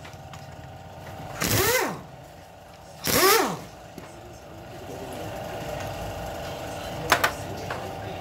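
A power tool runs in two short bursts, its whine rising and falling each time, over a steady hum, with a couple of sharp metallic clicks near the end.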